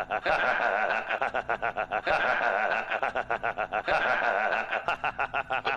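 High-pitched, rapid laughter: a fast, even run of about ten laugh pulses a second, kept up with only brief breaks.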